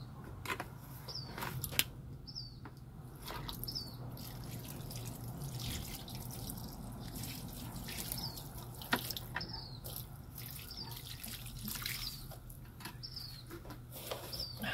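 A small bird repeating a short high chirp about once a second, over irregular rustling and a few sharp clicks or snaps, the loudest about two and nine seconds in.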